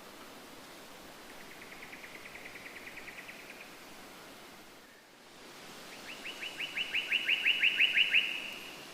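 A songbird singing two rapid trills of evenly repeated short notes, the first fainter and the second louder, over a steady background hiss.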